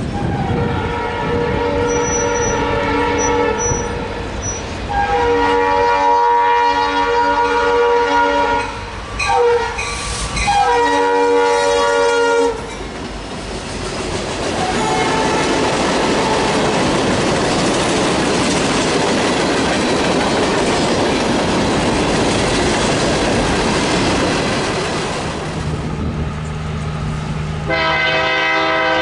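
A Norfolk Southern freight locomotive's air horn sounding long, long, short, long, the grade-crossing signal. The train then rolls past with a steady rumble and wheels clicking over the rail joints, and the horn sounds again near the end.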